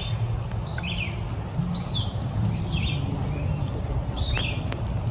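A songbird calling over and over, one short high call about every second, over a low steady rumble.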